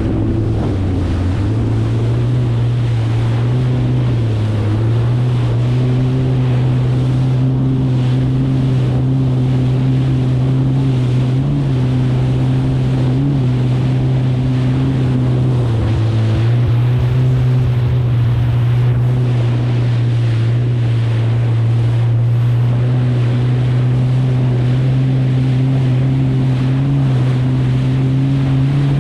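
Kawasaki STX 160 jet ski's four-cylinder four-stroke engine running at a steady cruising throttle through choppy water, over the rush of water and wind on the microphone. The engine note sags briefly about a second in and again around the middle, then picks back up.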